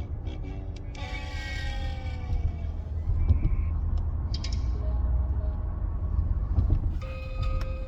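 Electronic novelty sound effects: a falling gliding tone, a few short high chirps, then a steady held tone near the end, over a steady low rumble.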